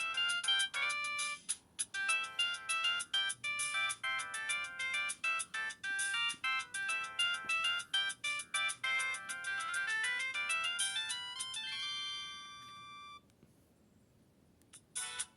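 Samsung C3011 mobile phone's built-in ringtone playing through its small loudspeaker: a quick electronic melody of many short notes that ends about twelve seconds in on a held chord that fades away. After a short pause the next ringtone starts right at the end.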